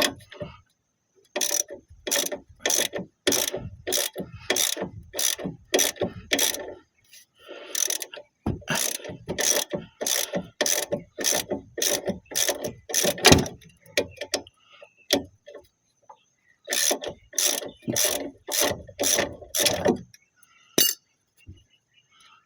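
Hand ratchet wrench worked back and forth in quick, even strokes, about two a second, in three runs with short pauses between them.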